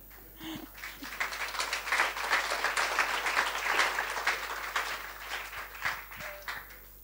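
Audience applauding: the clapping builds about a second in, is loudest around the middle, then dies away near the end.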